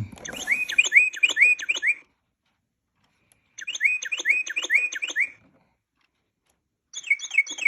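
Recorded Carolina wren song played by a Mark Feldstein Audubon Society singing bird clock as its seven o'clock chime: three phrases of rapid, repeated rising-and-falling notes, separated by silent pauses of about a second and a half.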